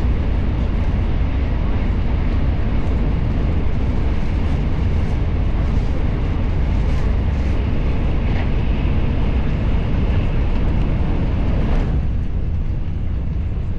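Steady low rumble of a moving vehicle, a little quieter near the end.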